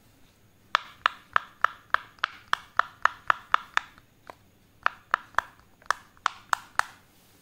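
Silicone pop-it fidget toy bubbles pushed in one after another with a fingertip: crisp little pops, about three a second. There is a short pause near the middle before a second run of pops.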